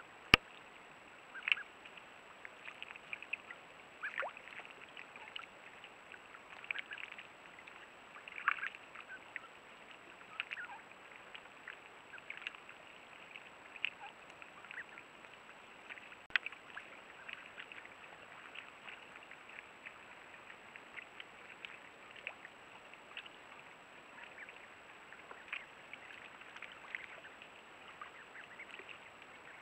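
Mallard hen and ducklings dabbling and paddling in shallow water: scattered small splashes, bill-dabbling sounds and soft peeps, busier in the first half. One sharp click right at the start.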